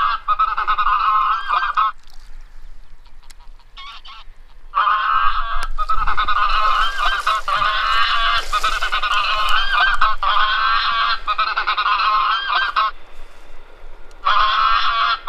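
Electronic goose caller playing a recording of a flock of honking geese. The calls come in blocks that start and stop abruptly: a short burst at the start, a long stretch from about five seconds in to thirteen, and another near the end.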